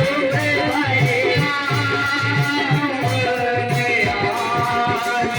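Indian folk-devotional song played by a small band: a steady dholak and octopad beat under a melody line.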